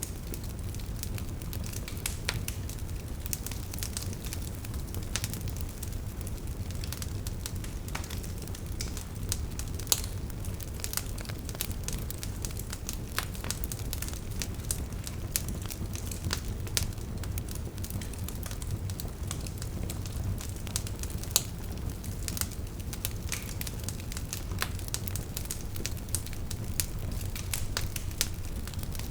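Wood fire burning in a fireplace: logs crackling with frequent sharp pops over the steady low rumble of the flames.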